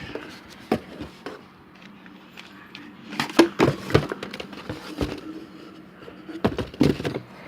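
Hands opening and handling the packaging of an AR-15 bolt carrier group: a scattered string of clicks, knocks and rustles, busiest about three to four seconds in and again near the end.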